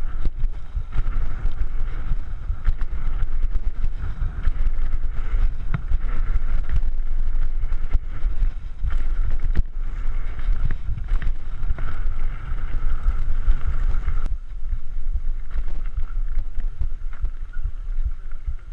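Wind buffeting the microphone over the rumble and rattle of a mountain bike rolling fast down a dirt and gravel trail. The noise eases about fourteen seconds in as the bike slows.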